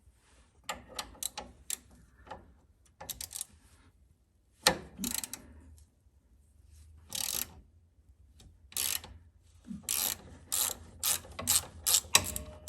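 Ratchet wrench clicking in short, irregular runs as it works a nut on the steering bellcrank pin, with a few metallic clanks of tool on metal.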